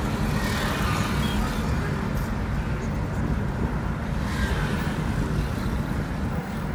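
Steady low rumble of engine and road noise inside a moving car's cabin, driving in town traffic.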